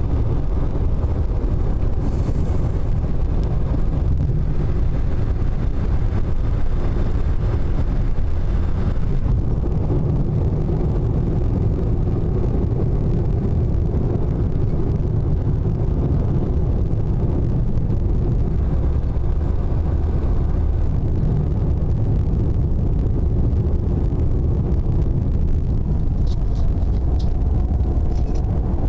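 Steady low rumble of a car driving at road speed, heard from inside the cabin: tyre and engine noise. A few faint ticks near the end.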